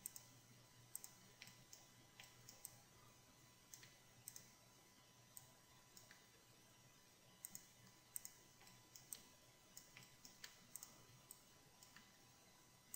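Faint computer mouse and keyboard clicks, scattered irregularly, some single and some in quick pairs, over near silence.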